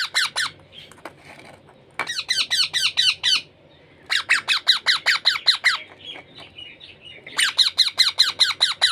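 Baby parrot chick giving rapid, repeated squawking calls, about six or seven a second, in four bouts of one to two seconds each: the begging calls of a chick being hand-fed.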